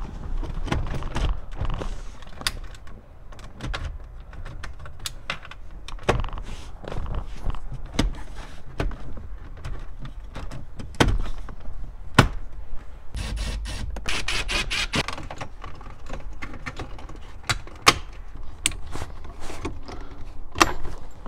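Plastic dash trim panels of a Ford Super Duty truck being fitted and pressed back into place: scattered sharp clicks and knocks as the clips snap home, with handling rustle. About two-thirds of the way through there is a quick run of rattling ticks.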